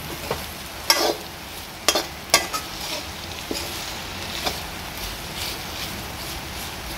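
Small shrimps and green chillies stir-frying in a large metal wok, with a steady sizzle under a wooden spatula scraping and stirring. The spatula knocks sharply against the pan several times in the first half.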